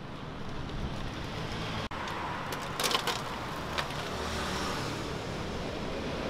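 City street traffic noise: a steady hum of passing cars and trucks, with a few short high clatters just before the middle and a brief dropout about two seconds in.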